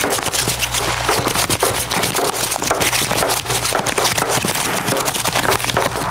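Recyclable packaging waste being crumpled, crinkled and scraped, making a dense, irregular crackling, with a low steady hum underneath.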